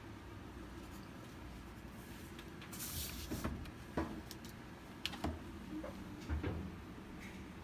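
Handling sounds on a desk: a short rustle of paper about three seconds in, then several light knocks and taps as things are set down and picked up.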